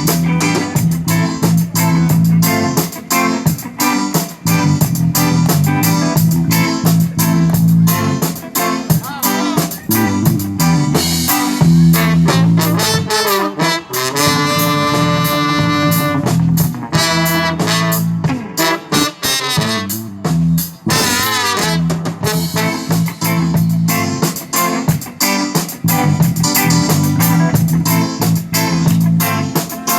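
Live band music with guitar, bass and a steady beat, and a horn-like lead line. About halfway through, a lead instrument holds one long note with a wavering pitch.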